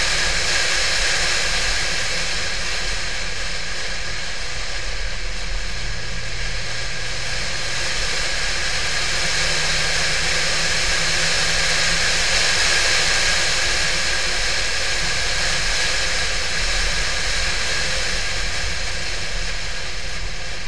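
Steady rush of wind and road noise at speed, picked up by a camera on the front of a Porsche 911 (996). The car's low engine hum runs underneath and shifts in pitch a couple of times about midway.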